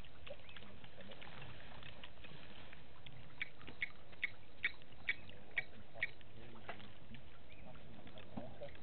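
Steady bush ambience with a run of about seven short, sharp chip notes, about two a second, from about three and a half seconds in to about six seconds in, typical of a small bird calling.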